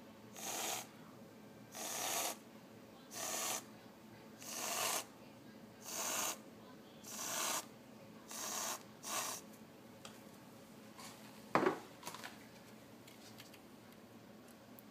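An aerosol can of whipped cream spraying in eight short hissing spurts, about one every second and a quarter, each spurt piping a rosette. A single sharp knock comes about two seconds after the last spurt, followed by a few faint clicks.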